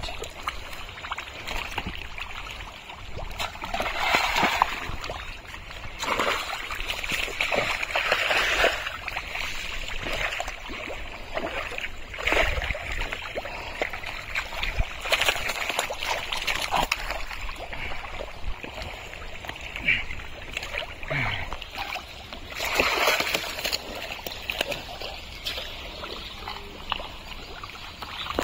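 Wet mud and shallow water sloshing and splashing in irregular surges as a man wades and gropes through a mud-filled pond by hand.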